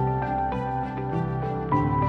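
Gentle background music with sustained notes, changing chord about three-quarters of the way through.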